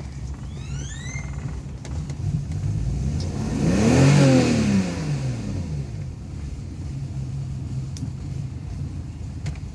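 1998 BMW 528i's 2.8-litre straight-six running, blipped once about four seconds in: the pitch rises and drops back to a low, steady run. The car has an idle fault: it will only keep running when given gas.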